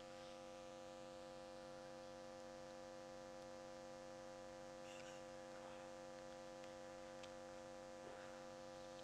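Near silence with a faint, steady electrical hum, as from an open microphone and amplifier, and a few very faint clicks.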